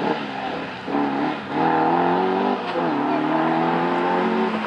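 Competition saloon car's engine revving hard on a slalom course. Its pitch rises, drops sharply about two and a half seconds in as it changes gear, then runs on high and steady.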